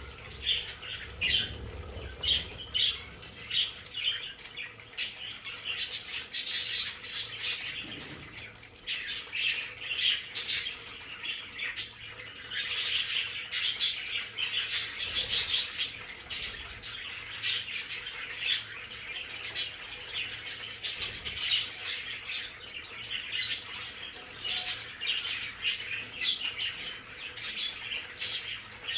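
A flock of budgerigars chattering continuously: many short, quick chirps and squawks overlapping.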